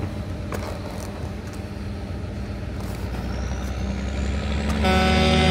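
Tractor engine running with a steady low hum that grows louder over the last few seconds. Near the end a whine of several steady tones suddenly sets in over it.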